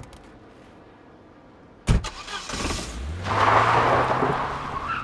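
A car door slams shut about two seconds in. The car's engine then starts with a rising hum and revs, with a loud rush of noise over a steady low engine note.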